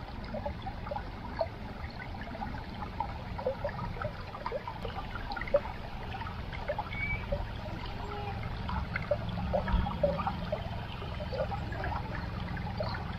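Shallow river water trickling and babbling over stones, with many small irregular splashes and a steady low rumble underneath.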